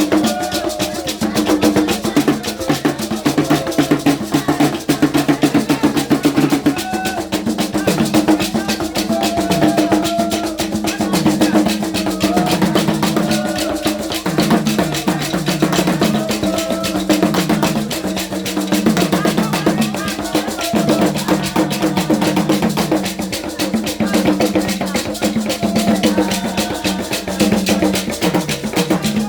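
Music of fast, dense drumming and percussion, running on without a break over a steady low pitched drone, with short higher pitched notes coming and going above it.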